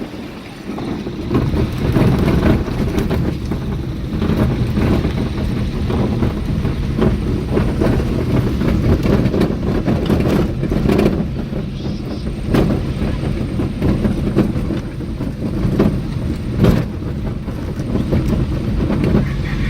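Vehicle driving on a rough country road: a steady engine and road rumble that picks up about a second or two in, with occasional knocks and jolts.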